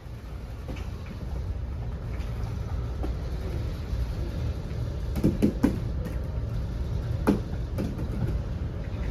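Steady low background rumble, with a few short knocks: a quick cluster about five seconds in and one more about seven seconds in.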